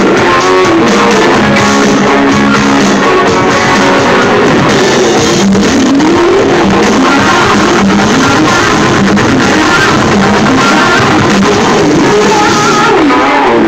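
Rock band playing live, with electric guitar prominent over keyboards and drums, heard loud and even in level from the audience.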